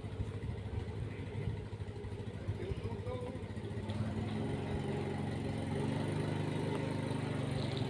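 A motor vehicle engine running steadily, growing louder over the last few seconds and then cutting off, with a faint chirp or two.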